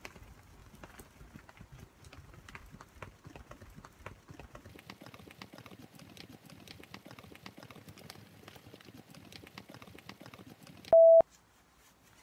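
Faint rustling and small clicks of items being handled and sorted, then near the end one short, loud, steady beep.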